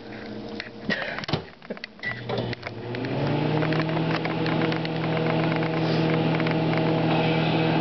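A few clicks, then about two seconds in a Sanyo microwave oven starts and runs with a steady hum.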